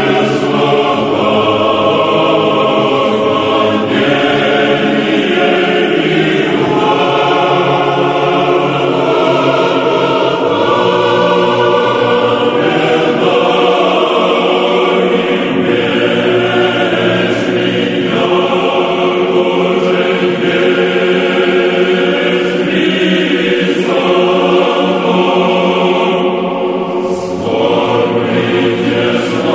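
Choir singing a slow Orthodox chant, many voices holding sustained chords that change every few seconds.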